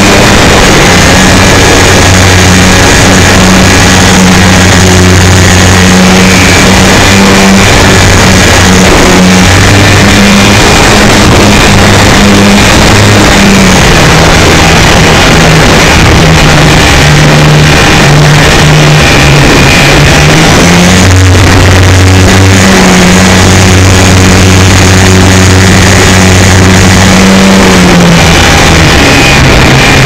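Heavy wind buffeting on an onboard camera of a radio-controlled Super Cub model plane, loud and distorted, over the steady hum of its electric motor and propeller. The hum drops in pitch about halfway through and rises again a few seconds later as the throttle changes.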